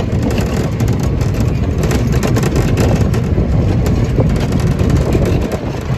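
Go-kart driving around a track at speed, heard from the driver's seat: a loud, steady mix of engine and road noise with constant rattling.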